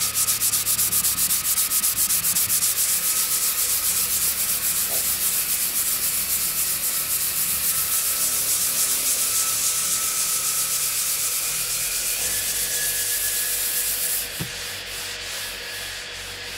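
Dry 800-grit Kovax sandpaper on a hard Mirka hand block rubbed in rapid, even back-and-forth strokes over a BMW M3's bare carbon-fibre roof panel. About fourteen seconds in the fast strokes stop, and a few slower, fainter rubs follow.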